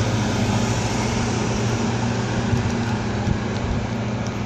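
Steady low machine hum over a constant rushing background noise, unchanging throughout.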